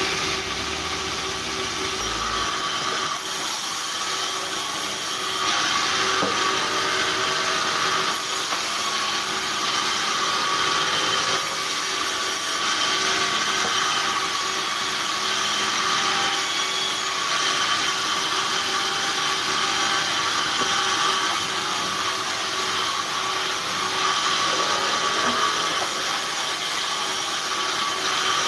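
Large vertical band saw ripping timber: a steady mechanical hum and whine under the rasping noise of the blade cutting through wood, which swells and eases every few seconds as the boards are fed through.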